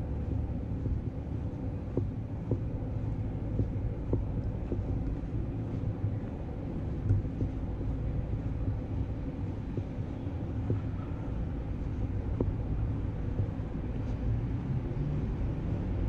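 Street ambience of a city centre: a steady low rumble of distant traffic, with faint taps at about walking pace, typical of footsteps on stone paving.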